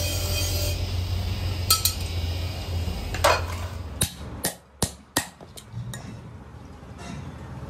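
A bench grinder motor hums as a steel hydraulic-jack part is ground against its wheel. About four seconds in, a hammer strikes a steel pin and bracket resting on a steel block: about six sharp metallic taps, a third of a second or so apart.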